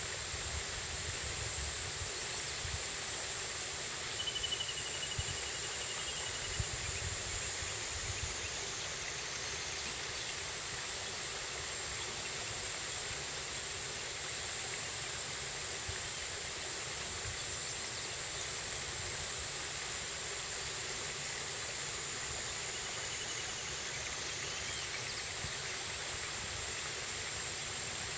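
Stream current flowing steadily, an even rush of water.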